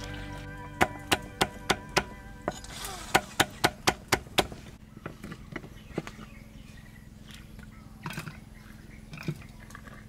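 A run of sharp knocks from food preparation, about three a second for several seconds, then a few scattered softer knocks and clinks. Background music fades out at the start.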